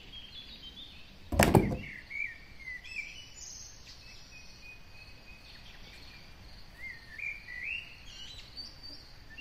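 A single thump about a second and a half in, then faint bird chirps in the background.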